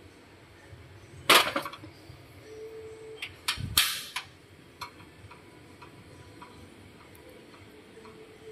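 Metal pot lid clattering as it is handled: a sharp rattling clatter about a second in, a few clicks, then a second loud clatter a little before the middle. Faint light ticking follows.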